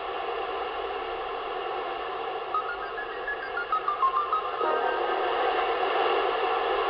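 Shortwave AM broadcast heard through a Yaesu FT-897D receiver tuned to Radio Australia on 9965 kHz: steady hiss and static in a gap between spoken phrases, with a faint short run of stepping tones from about two and a half to four and a half seconds in.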